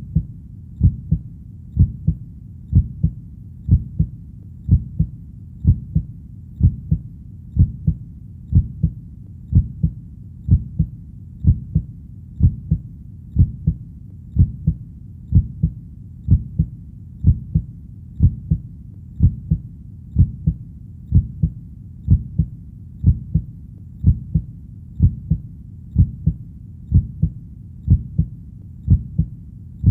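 Heartbeat sound: a steady lub-dub rhythm of paired low thumps, about one heartbeat a second, over a low, steady background rumble.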